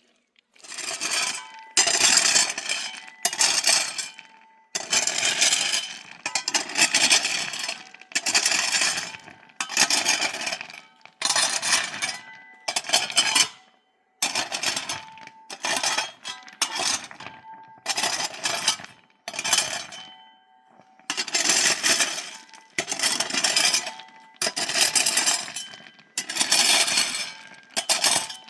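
Repeated scraping strokes with a gritty clink, about one every second or so, each a short rush of noise that fades away.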